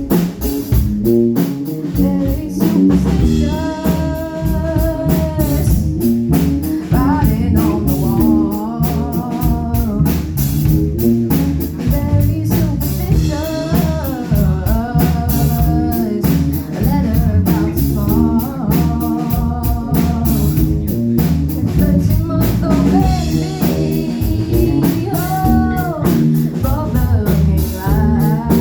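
A band playing a bluesy rock groove on drum kit and guitar, with a voice singing held, wavering notes over it.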